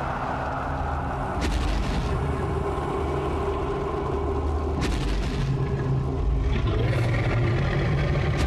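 Deep, continuous rumbling booms from a dramatic sound-effects track, with sharp cracks about one and a half, five and seven seconds in.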